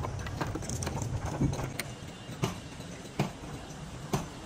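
Sharp knocks on wood, about one every half second to a second at an uneven pace, over a low background rumble.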